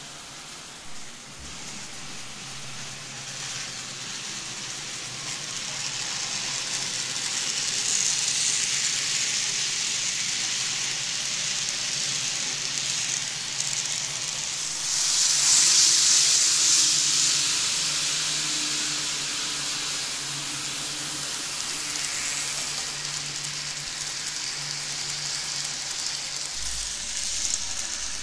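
N gauge model trains running on track: a steady rushing hiss from the wheels and motors, loudest about 15 to 17 seconds in as a train passes close by.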